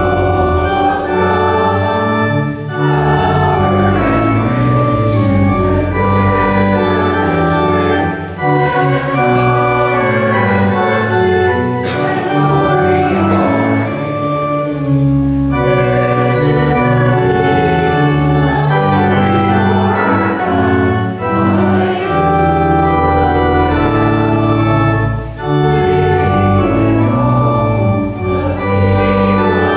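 Organ playing sustained chords over a held bass line, the harmony moving in slow phrases with brief breaks between them.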